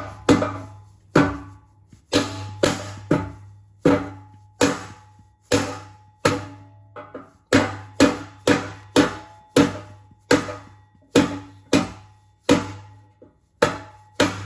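Mallet striking a block of wood held against an exhaust tip, a steady run of sharp knocks about two to three a second with short pauses, driving the pressure-clipped tip off the exhaust pipe.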